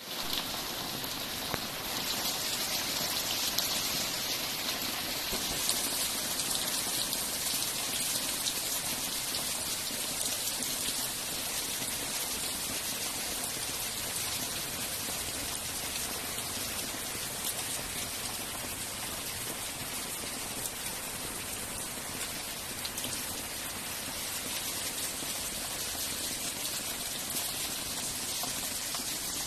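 Heavy rain pouring down steadily, spattering on wet concrete steps with water running over them.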